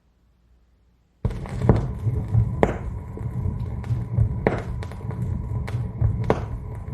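The stylus of a Marantz 6110 turntable setting down on a vinyl record as the cueing lift lowers the tonearm, with a sudden start about a second in. What follows is record playback through the amplifier and speakers with several sharp pops and clicks from the groove.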